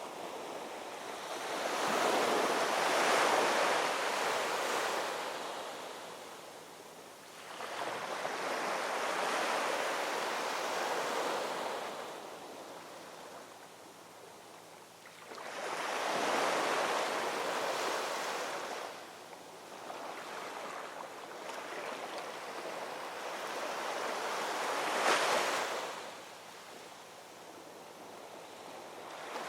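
Ocean waves rolling in and breaking on the shore: the surf swells and fades in slow surges every five to eight seconds, one breaking more sharply near the end.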